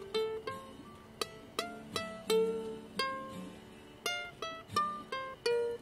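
Instrumental music on a plucked string instrument picking out a melody of single notes, about two to three notes a second, each note ringing and fading.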